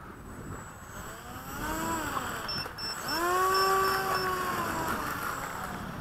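Electric motor and propeller of an FMS Dragonfly RC model plane throttled up and down twice, the whine rising then falling in pitch each time; the second burst is longer and louder.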